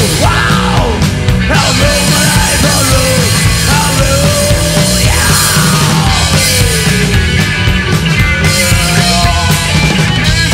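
Rockabilly-punk band playing loud and live: electric guitar, bass and drums, with a singer's voice gliding up and down over them.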